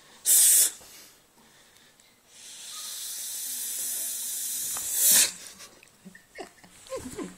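A person hissing like a snake: a short sharp hiss, then a long drawn-out 'ssss' of nearly three seconds that ends in a louder burst. Faint rustling follows.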